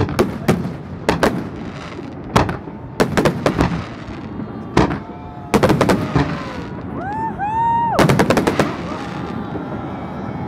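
Aerial firework shells bursting in quick succession: a string of sharp bangs, densest in two clusters around six and eight seconds in. Spectators whoop a couple of times near the end.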